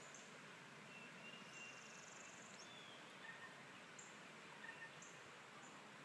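Faint songbird calls, several short high chirps and a few brief whistles, scattered over a steady soft rush of a babbling brook.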